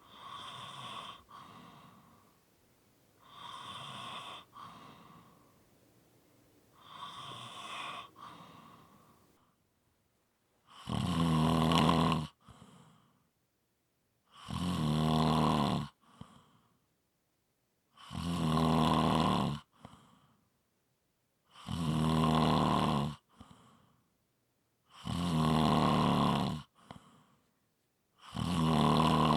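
A person snoring in a slow, even rhythm. Three softer snores come first, then after a brief silence about ten seconds in, six louder, deeper snores come about three and a half seconds apart, each with a short, fainter tail.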